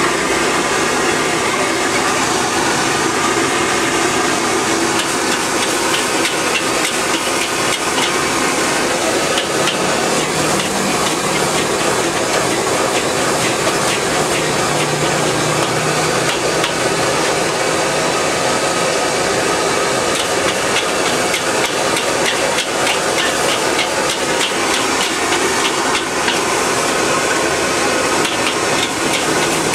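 Metal spatula striking and scraping a wok as fried noodles are stir-fried and tossed: many quick clanks and scrapes over a steady frying hiss.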